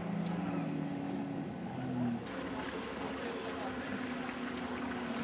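Jet ski engines droning steadily. The sound changes abruptly about two seconds in, and a single jet ski's drone carries on after that.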